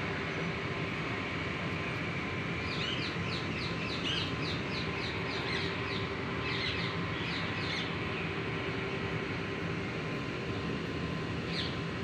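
A bird calling in quick runs of short, high chirps, about five a second, a few seconds in and again around the middle, with a single chirp near the end. A steady outdoor hum runs underneath.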